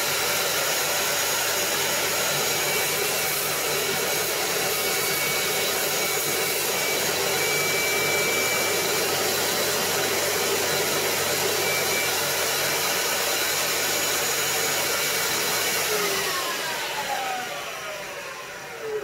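Power tool running steadily while cutting along a scored line in the wood. About three seconds from the end it is switched off, and its motor whine falls in pitch as it spins down.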